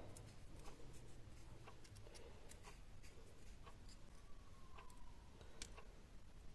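Near silence: room tone with faint, irregular light clicks scattered throughout.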